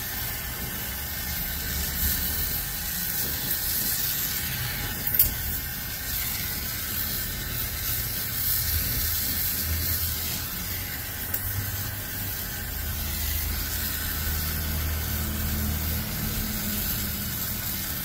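Oxygen-MAPP gas brazing torch (Ambro Controls OXYSET, number 3 tip) burning with a steady hiss and a low rumble while heating a copper joint for brazing, with one brief click about five seconds in.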